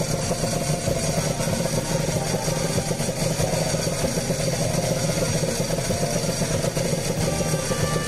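Honda NSR250R two-stroke V-twin idling steadily through a T2R expansion chamber and a hand-made full-carbon silencer packed with carbon felt, putting out about 81 dB at idle.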